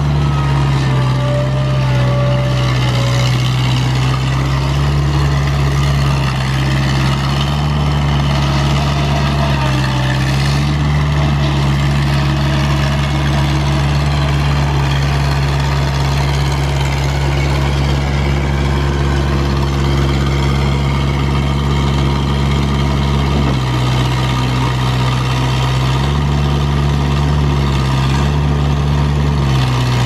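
John Deere 125 skid steer's four-cylinder gas engine running steadily, its pitch dipping briefly now and then.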